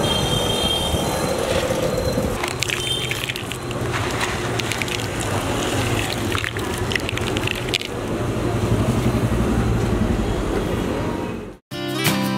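Roadside street ambience: a steady low traffic hum with scattered light clicks and rattles. Near the end the sound cuts out and acoustic guitar music starts.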